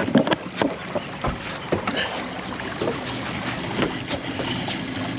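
Boat motor running steadily as the boat gets under way, with scattered knocks and clatter on board.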